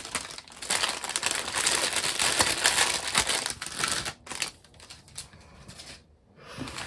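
Packaging crinkling and rustling as it is handled, busy for about four seconds and then dying away to a few faint rustles.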